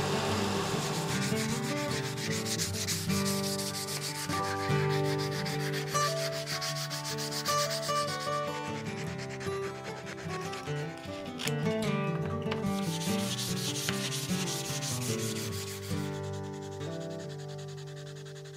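Sandpaper rubbed by hand over a cocobolo wood axe handle in long stretches of quick strokes, with a lull about halfway through, easing off near the end. Background music with held notes plays underneath.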